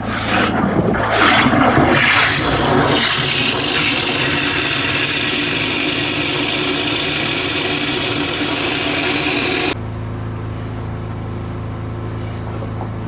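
High-pressure drain jetting machine's engine running steadily, with a loud hiss of the water jet spraying that cuts off suddenly about three-quarters of the way through while the engine keeps running.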